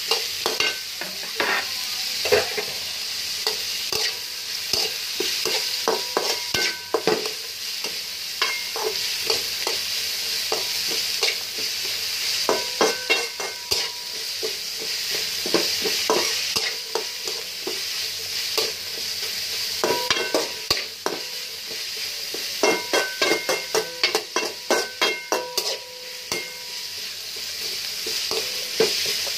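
Sliced onions and whole spices sizzling in hot oil in a metal karahi as they are fried into beresta. A spatula scrapes and knocks against the pan in runs of stirring strokes, and the pan rings briefly at the knocks.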